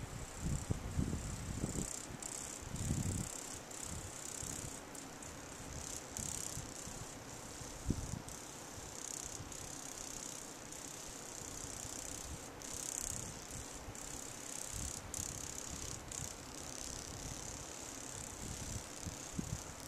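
A steady high-pitched insect chorus, such as crickets or grasshoppers, over outdoor ambience. Wind buffets the microphone with low rumbles several times in the first three seconds, once about eight seconds in and again near the end.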